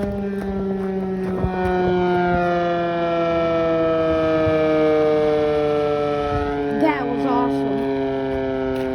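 Sentry 10V civil defense siren winding down, its stack of tones falling slowly and steadily in pitch.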